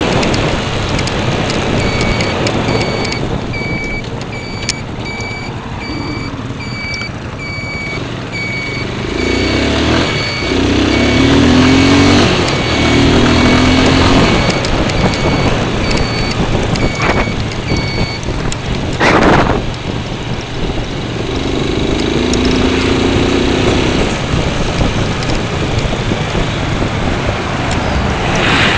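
Riding a Guerrero Queen 200 motorcycle, heard from a helmet-mounted camera: a steady rush of wind and road noise under the motorcycle engine, which rises in pitch as it accelerates a few times, around the middle and again later. An electronic beep repeats about every two-thirds of a second through the first two-thirds.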